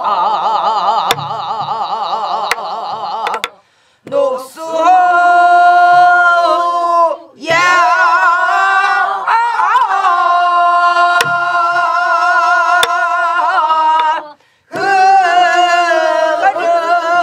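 Teacher and class singing a Namdo folk song (Korean southwestern folk singing) together, in long held notes with a wide, shaking vibrato and short pauses for breath between phrases. A buk barrel drum is struck a few times, sparse beats under the voices.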